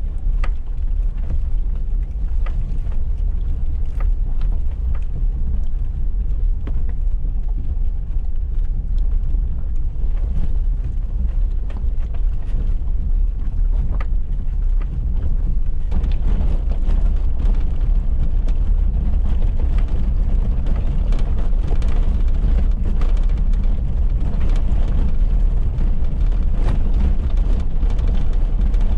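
Suzuki Jimny driving along a rough unsurfaced lane: a steady, heavy low rumble of engine and tyres, with scattered knocks and rattles from the bumpy track. The noise grows brighter about halfway through.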